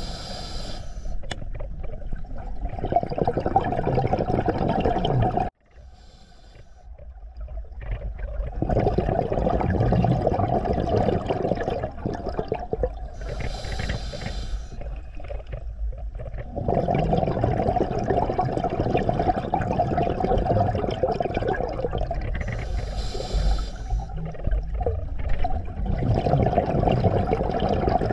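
Scuba diver breathing underwater through a regulator: a short hiss on each inhale, followed by long stretches of exhaled bubbles, about one breath every ten seconds. The sound breaks off suddenly about five seconds in and builds back up.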